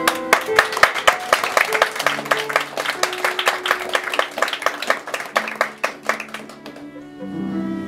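Audience applause, a patter of hand claps, over soft held piano notes for about six and a half seconds. The applause dies away and the violin and piano start playing near the end.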